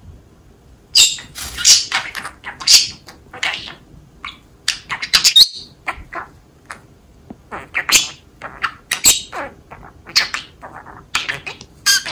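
A male budgerigar chattering in a rapid, chirpy warble, mimicking short Japanese phrases such as 'dare ka' ('who is it?').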